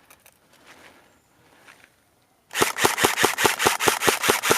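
Airsoft gun firing a rapid, even string of about a dozen shots, some five or six a second, starting about halfway through after a quiet stretch.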